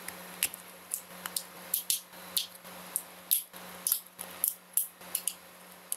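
Snap-fit plastic case of a phone power bank being pried apart at its seam with a thin blade: an irregular run of sharp clicks and small snaps as the press-fit latches work loose.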